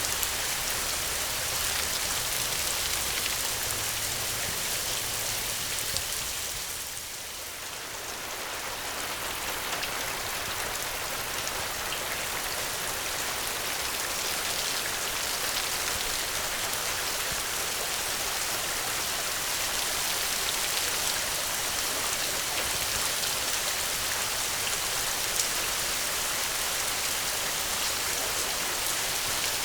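Steady rain falling, a dense even patter and hiss strongest in the highs, briefly dipping in level about seven seconds in before returning.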